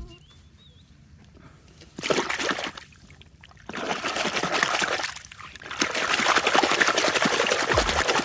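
Water spraying and splashing in bursts, as in washing toys with running water: a short burst about two seconds in, then longer ones from about four and six seconds in.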